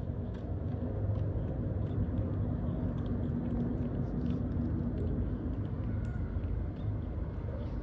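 A steady low rumble with a faint hum under it, and scattered faint light clicks as a baby macaque chews banana.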